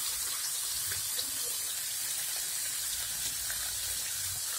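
Liver pieces frying in oil on a tawa: a steady sizzle with a few faint pops.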